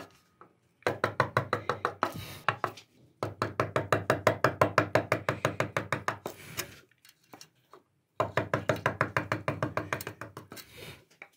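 Wood-carving chisel tapped rapidly into walnut with a mallet: quick, even knocks at about six or seven a second, in three runs broken by short pauses.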